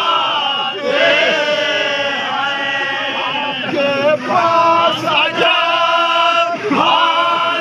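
A group of men chanting a Muharram nauha (Shia mourning lament) together, loud and continuous, led by one man reading the verses from a sheet.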